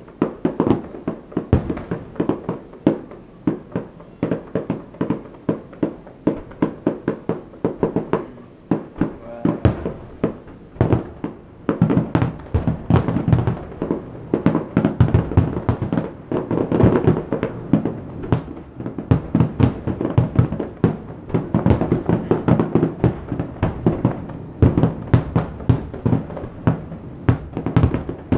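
Aerial fireworks shells bursting in a rapid, unbroken barrage, several bangs a second.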